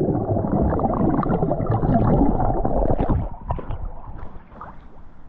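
Lake water splashing and gurgling right at the microphone as a swimmer moves through it, sounding muffled; it is loud for about three seconds and then dies down.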